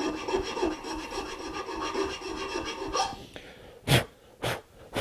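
A fine file scraping across the end grain of dovetail pins in steady strokes, easing a joint that has swelled too tight. The filing stops about three seconds in, followed by two short, loud sounds about half a second apart.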